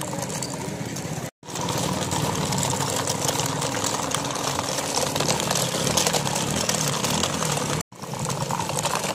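Small motor of a toy mini tractor running steadily as it drives along pulling a loaded trolley, its wheels rolling on the floor; the sound cuts out briefly twice.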